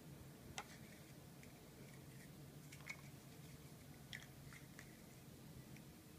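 Faint sharp clicks of large plastic Mega Bloks First Builders blocks being handled and pressed together, four or so clicks spread a second or more apart over a low steady hum.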